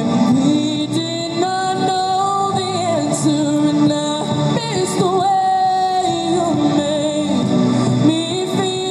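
A young woman singing into a microphone, amplified through a small portable busking speaker, with long held notes that slide between pitches over a musical accompaniment.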